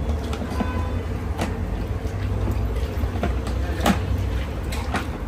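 Cooking oil being poured from plastic bottles into a large cast-iron kazan, over a steady low rumble, with a few sharp clicks and taps from the bottles and pot.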